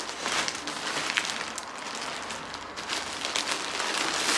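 White H&M plastic mailing bag crinkling and rustling as it is pulled open by hand, with many small crackles throughout.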